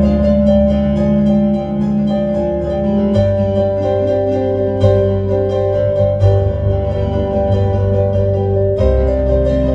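Piano played in a quick, repeated-note pattern of short chords over held low bass notes; the bass shifts to a new note about three seconds in and again near the end.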